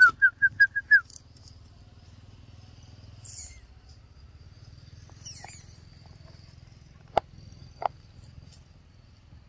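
An animal gives a rapid series of about six short, high-pitched calls in the first second. Two sharp clicks follow about seven and eight seconds in.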